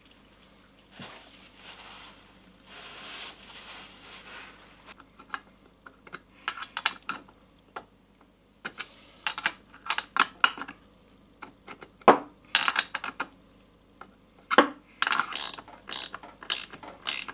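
Metal clicks, clinks and knocks of parts and tools being handled, coming irregularly and getting busier through the second half, after a soft hissing or rustling noise in the first few seconds.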